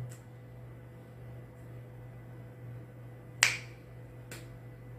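A single sharp finger snap about three and a half seconds in, then a fainter click about a second later, over a steady low hum.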